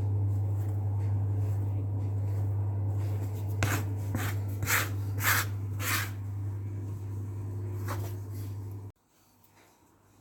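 Dough scraper chopping rolls of gnocchi dough on a wooden board: about five quick scraping cuts in the middle, roughly one every half second, and one more later. A steady low hum underlies them and cuts off suddenly near the end.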